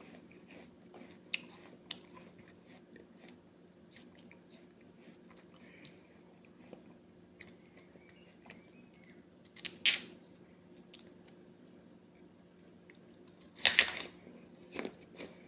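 Chewing and crunching on a crunchy snack: scattered small crunches, with louder bites about ten seconds in and twice near the end, over a faint steady hum.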